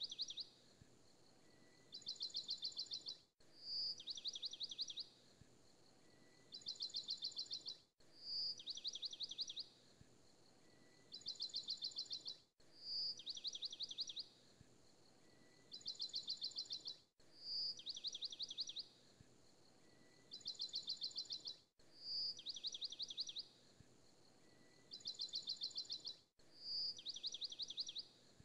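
Short recording of bird chirping looped as a background track: a high single note, then two quick trills of rapid chirps, the same pattern repeating about every four and a half seconds with a brief break at each loop.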